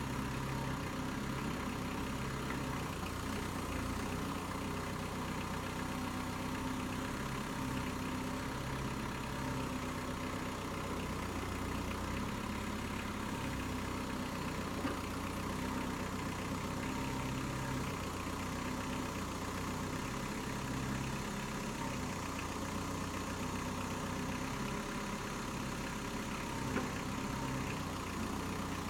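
Kubota M59 tractor-loader-backhoe's diesel engine running steadily, with a couple of light knocks, one about halfway through and one near the end.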